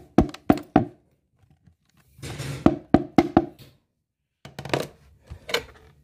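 Quick hollow knocks and clatter of a plastic washing-machine agitator being handled: a fast run of knocks at first, then two shorter clusters of knocks.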